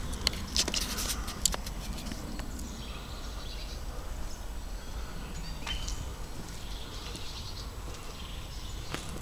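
Footsteps crunching on gravel and debris in the first second or so, then faint bird calls.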